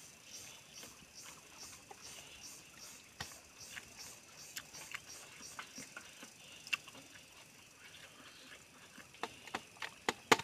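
Close-up eating sounds: chewing and lip-smacking on duck curry and rice, with scattered short, sharp clicks of mouth and fingers working the food, several in quick succession near the end.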